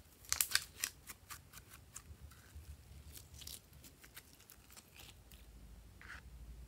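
Glossy slime squeezed and kneaded between the fingers, giving off a run of sharp clicks and pops, densest in the first second, then sparser and fainter.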